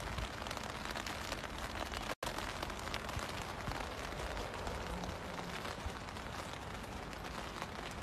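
Steady rain falling on wet paving, an even hiss with a brief dropout about two seconds in.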